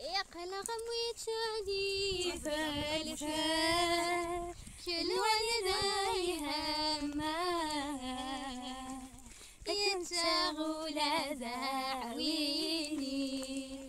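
A young woman's voice singing a melody unaccompanied, in long held notes with a wavering vibrato, in three phrases with short breaks between them.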